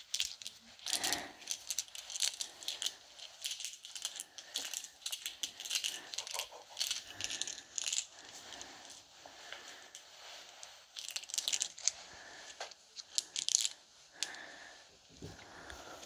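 ASMR trigger sounds from a video played through a handheld game console's small speaker: close-miked crackling, tapping and rustling at the microphone, with sharper clicks scattered throughout.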